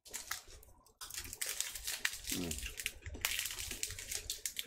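Plastic wrapper of a Wispa chocolate bar crinkling and tearing as it is unwrapped by hand, a dense run of fine crackles.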